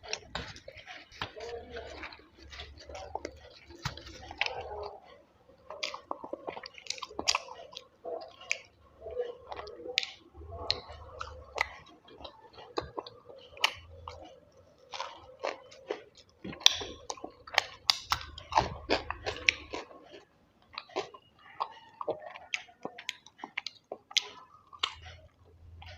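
Close, wet chewing and mouth sounds of someone eating mutton curry with rice, with many irregular sharp smacks and clicks.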